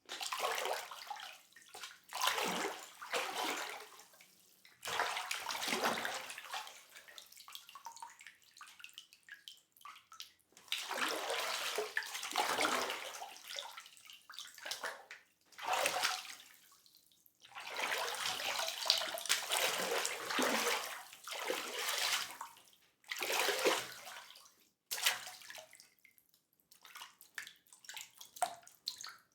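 Water splashing in irregular surges, some short and some lasting several seconds, with brief quiet gaps between them.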